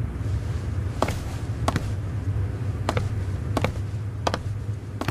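Slow hard-soled footsteps on stone: about six sharp, separate steps, roughly one every 0.7 seconds, over a steady low hum.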